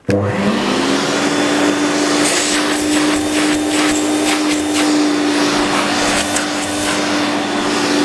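Hoover Turbopower 2 U2464 upright vacuum cleaner switched on in its low power setting: the motor spins up, its hum rising in pitch over about half a second, then runs steadily with a rushing airflow. A scatter of brief crackles comes between about two and seven seconds in.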